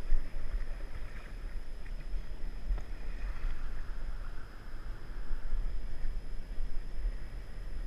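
River water rushing around a paddle raft, with wind buffeting the microphone in a heavy low rumble.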